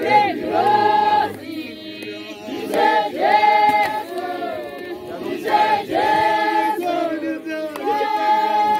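A congregation of many voices singing a hymn together, in phrases of held notes with short breaks between them, softer for a moment about two seconds in.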